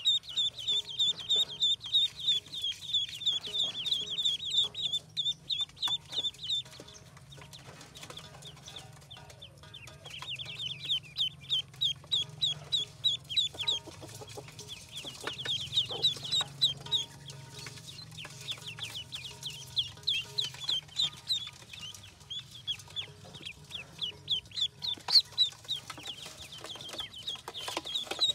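Ducklings peeping: rapid high-pitched peeps, several a second, in runs broken by short pauses, the longest about a quarter of the way in.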